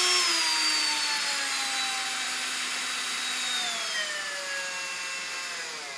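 Milwaukee cordless drill running and slowing down from about 1500 RPM, its motor whine falling in pitch, with a further drop a few seconds in, then stopping abruptly near the end.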